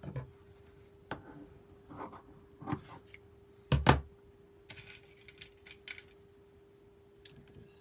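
Scissors and dressmaking pins handled on a cutting mat: a few light taps, a louder double knock about four seconds in, then a light metallic rattle of pins. A faint steady hum runs underneath.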